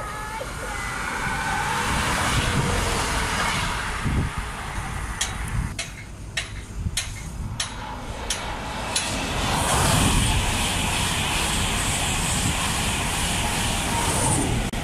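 Electric express train, a Class 91-hauled InterCity 225, approaching and passing at speed: a rush of wheel and rail noise with a high hiss that grows louder from about two-thirds of the way in, after a run of sharp clicks.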